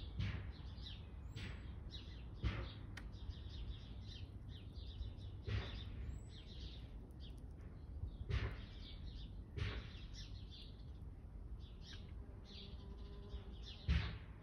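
Small birds chirping in the background, in short repeated bursts of high calls. Under them runs a low rumble of wind on the microphone, with a few louder gusts.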